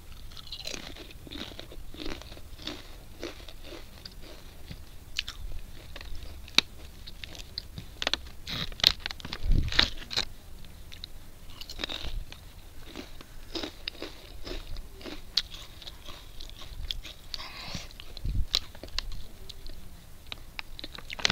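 Crunchy packaged snack chips bitten and chewed: an irregular run of sharp crunches, with a cluster of louder ones about halfway through.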